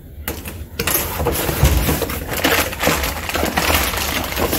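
Cardboard box flaps being opened and a plastic-bagged part pulled out, the plastic bag crinkling and rustling in a dense crackle that starts about a second in.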